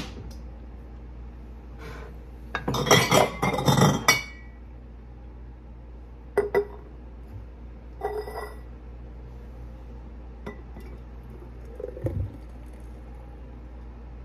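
Glass mason jar and plastic blender cup handled on a stone countertop: a quick cluster of clinks and knocks about three seconds in, then a few scattered single clinks.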